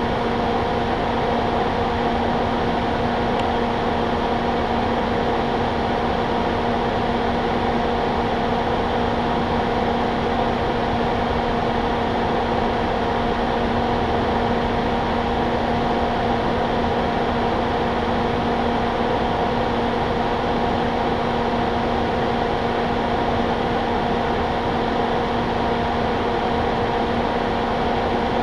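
Steady mechanical hum: a constant droning tone with a few higher overtones over an even, fan-like rushing noise, unchanging throughout.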